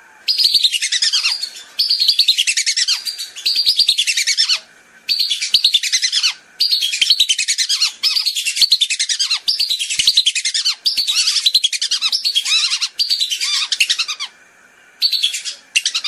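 Whistling ducks (belibis) calling, many rapid high falling whistles in a string of bursts with brief pauses: a belibis lure call.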